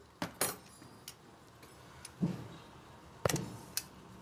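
A few separate sharp metal clicks and clinks, about five over four seconds, as the metal parts of a Diana 35 air rifle are handled and fitted together.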